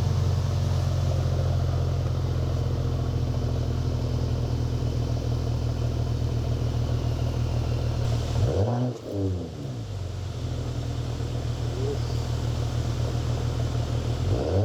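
Mercedes-AMG E53's turbocharged inline-six running on a steady low idle while it warms up. A little past halfway the pitch and level dip briefly and then settle back.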